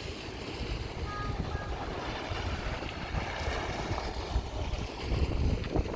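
Wind buffeting the microphone over the wash of sea waves, a steady low rumbling noise. About a second in, two faint short high tones sound in quick succession.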